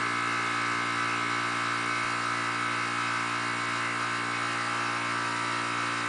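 Steady electrical hum of a running R22 air-conditioning compressor in a 2.5-ton Nordyne condensing unit, with the condenser fan disconnected. Head pressure stalls around 325 psi instead of climbing, which the tech takes for bad, leaking compressor valves.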